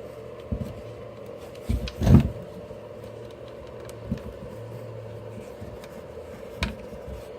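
Plastic housing parts of an electric blower knocking and clicking as the tail section is fitted back on: a few separate knocks, the loudest about two seconds in, over a steady low hum.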